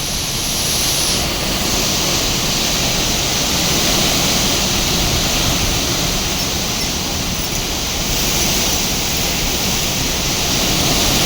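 Severe storm wind blowing hard through trees, a steady loud rushing that swells slightly in the first few seconds, with wind buffeting the microphone.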